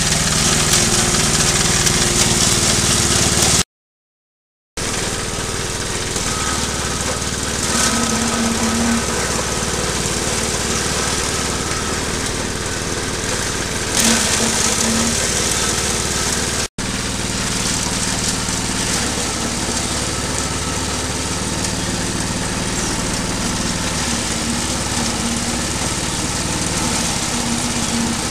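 Small stationary engine running a forage chopper at a steady speed, with the cutter shredding grass and leafy stalks fed into the hopper. The sound drops out for about a second, about four seconds in.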